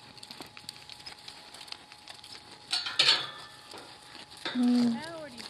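A horse moving on a sand arena: faint, scattered scuffs and clicks of its hooves. About halfway through comes a short, loud rushing burst, and near the end a person's drawn-out call that holds one pitch and then slides.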